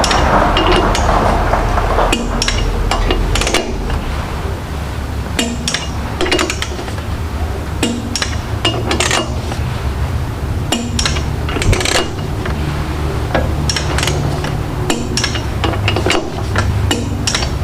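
Click-type torque wrench working around the flywheel bolts: scattered sharp metallic clicks and knocks of the wrench and tools, with a metallic pop as a bolt reaches torque. A steady low hum runs underneath.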